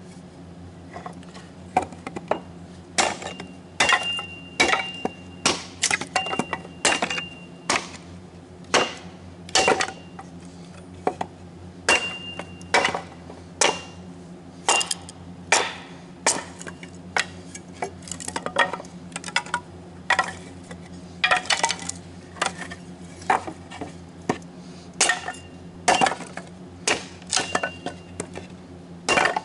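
Kindling being chopped: a long run of sharp knocks and cracks, irregular, about one or two a second.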